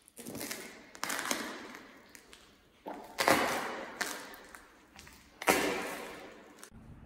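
A series of crunching steps, something being crushed underfoot: about five sudden crunches roughly a second apart, each trailing off in a crackle, the loudest about three and five and a half seconds in.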